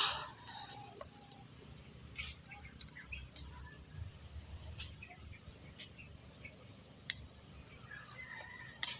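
Farmyard ambience: insects buzzing steadily at a high pitch, with scattered bird chirps and chicken clucks. A brief loud sound right at the start dies away quickly, and there is a sharp click near the end.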